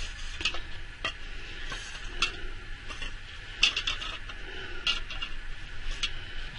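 Spatula stirring and scraping soap batter in a mixing bowl while it is poured into small cups, with light irregular clicks and taps against the bowl and cups.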